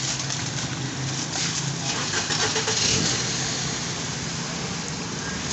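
Street traffic noise with an engine's steady low hum, and some light clicks and rustles in the first couple of seconds.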